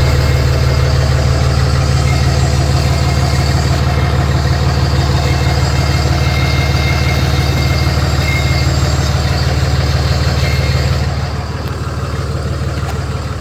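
Cummins diesel engine idling steadily, running again after a no-start problem. It gets a little quieter about eleven seconds in.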